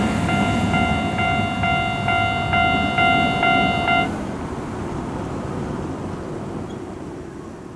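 Japanese level-crossing warning bell clanging about twice a second, then stopping abruptly about four seconds in, over the low rumble of a Hiroshima Electric Railway train that fades away. The bell falling silent is the sign that the train has cleared the crossing.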